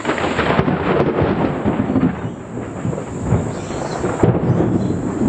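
Thunder from a close lightning strike: a sudden loud crack, then a long crackling rumble.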